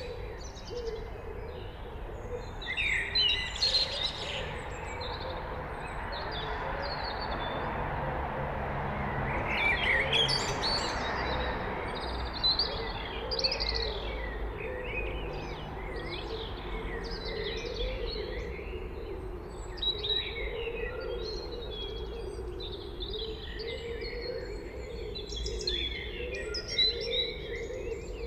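Blackbird singing in early-morning birdsong, short warbling and chirping phrases following one another without a break, over a steady low background hum.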